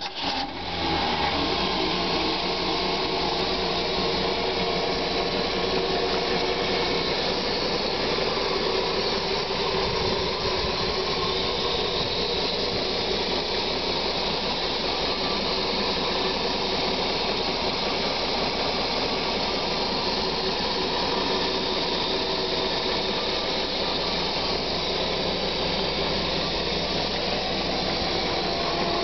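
Straight-six engine in a 1962 Ford Unibody pickup starting up, catching within about a second, then running at a steady idle, heard close to the open engine bay.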